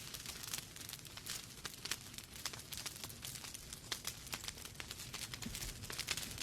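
Wood fire burning in a fireplace: a steady run of irregular sharp crackles and pops over a low rumble.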